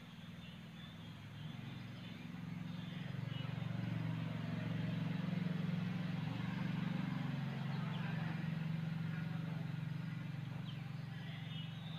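A low, steady engine hum that grows louder over the first few seconds and eases slightly toward the end.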